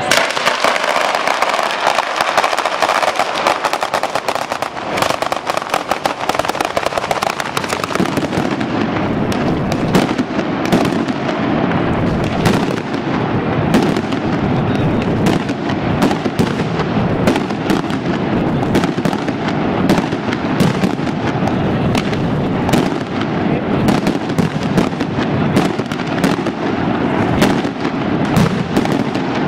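Mascletà firecrackers going off nonstop. For about the first eight seconds there is a dense, rapid crackle of firecracker strings. After that the bangs come heavier and closer together, several a second, with aerial bangs from the rockets overhead.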